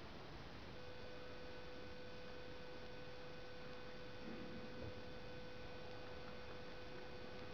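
Quiet room tone with a faint, steady pitched tone that comes in about a second in and holds unchanged.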